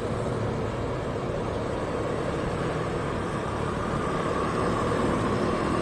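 Motorbike running at riding speed, with steady engine, wind and road noise; a steady whine grows a little louder about four seconds in.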